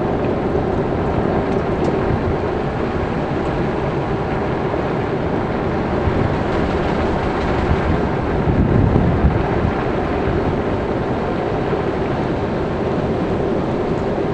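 Steady engine and tyre noise heard from inside a moving car's cabin, with a brief louder low rumble about eight to nine seconds in.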